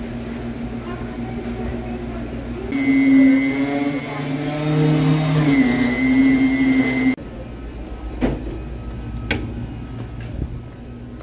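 Steady hum of a car running, heard from inside the cabin. It grows louder with held droning tones for a few seconds in the middle, then drops back, with two sharp clicks and a few short high beeps near the end.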